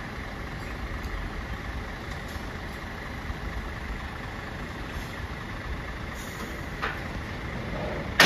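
Heavy truck's diesel engine idling steadily with a low rumble. A faint click about seven seconds in and a sharp knock at the very end, the loudest moment.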